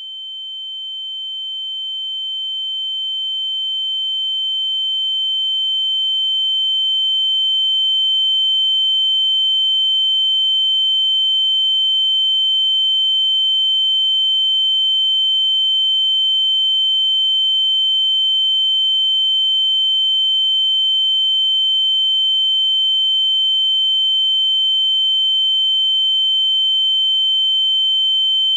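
A steady, high-pitched electronic tone with a fainter, lower steady tone beneath it. It swells louder over the first eight seconds or so, then holds level without a break.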